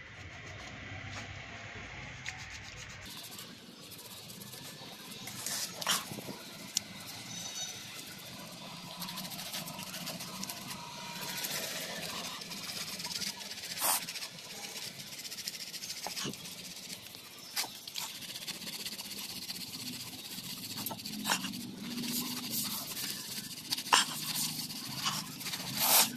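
Hand sanding with folded 180-grit waterproof sandpaper on the puttied bars of an iron window grill: a steady scratchy rubbing, with a few sharp clicks scattered through it.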